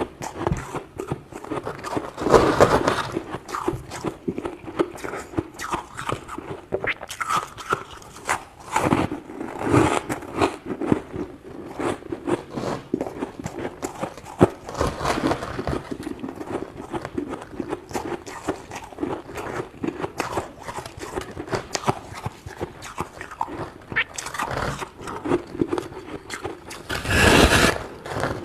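Crunchy freezer frost being scraped: a continuous run of small crunches and scrapes, with a louder scraping surge every few seconds, the loudest near the end.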